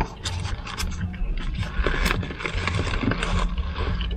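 Chewing a bite of burger close to the microphone, with crackling paper-wrapper handling noises and a low steady rumble underneath.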